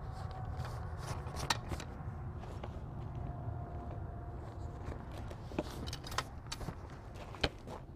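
Nylon bivvy fabric being handled and rustled while the porch poles are fed through eyelets, with several sharp clicks and taps of pole and fittings. A low steady rumble runs underneath.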